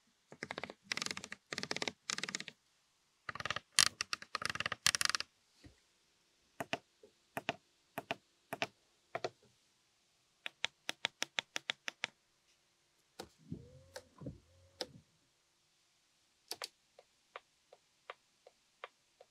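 Interior controls of a Mazda MX-30 R-EV being clicked one after another: dense runs of detent clicks, single presses, a quick run of about six clicks a second, a short gliding sound partway through, and evenly spaced ticks near the end. Crisp, damped clicks that are meant to show the car's high build quality.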